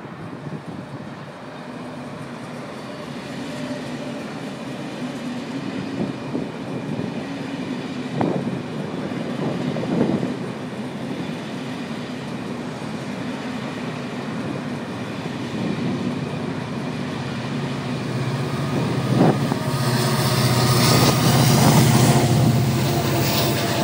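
Israel Railways Siemens Viaggio Light passenger train rolling past: steady wheel-on-rail noise with a few sharp clanks. It grows louder, and a low steady drone swells in about twenty seconds in.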